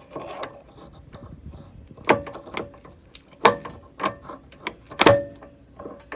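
Several sharp metal clanks, each with a short ring, from a UTV CV axle being worked against the splines of the front differential. The loudest come about two, three and a half and five seconds in.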